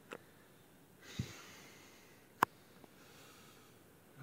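A man breathing out audibly through the nose, about a second in, with a fainter breath later, in a small quiet room. A single sharp click in the middle is the loudest sound.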